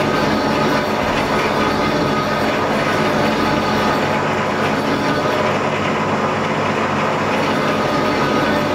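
Large Binns & Berry lathe running steadily with half the crankcase of an Alvis radial aero engine spinning in its chuck: a continuous mechanical whirr and rattle as the crankcase face is machined flat.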